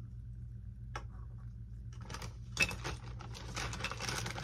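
Small hard model parts clinking and a plastic bag rustling as a hand rummages through a bag of kit pieces. There is one click about a second in, and a dense clatter from about two seconds in, over a steady low hum.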